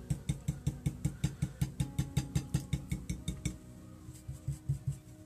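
A dry stencil brush pouncing acrylic paint onto a glass jar through a stencil: quick, regular taps at about five or six a second, with a short break about three and a half seconds in before the tapping starts again.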